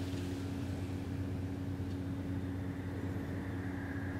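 Steady low drone of ship engines. A faint high whine joins in near the end.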